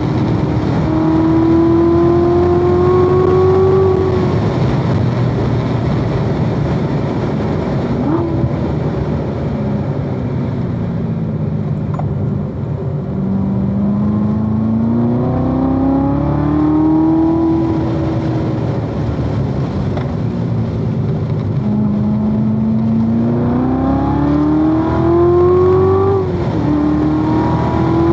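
Supercharged 6.2-litre LT4 V8 of a 2016 Corvette Z06 being driven hard on track. Its pitch climbs under acceleration, falls away as the car slows for corners, climbs again, and drops sharply at a gear change near the end.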